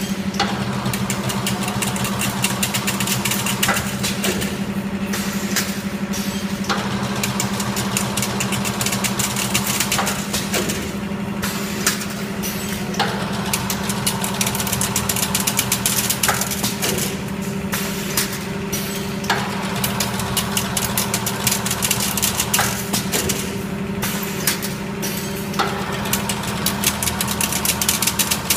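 Semi-automatic chain-link fence machine running: a steady motor hum under a fast, continuous rattle of the wire-forming mechanism, with sharp clacks every few seconds.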